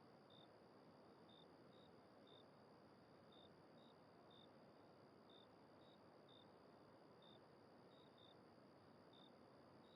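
Near silence: faint steady hiss with soft, short high chirps repeating irregularly, about twice a second.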